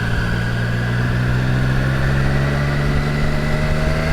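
Triumph Tiger 660's inline three-cylinder engine running steadily while riding, its note rising slightly in the second half.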